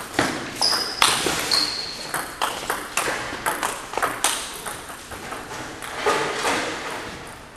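Table tennis ball clicking sharply off paddles and the table in a rally, echoing in a large gymnasium, with two short high squeaks about a second in. The clicks come more sparsely after the point ends.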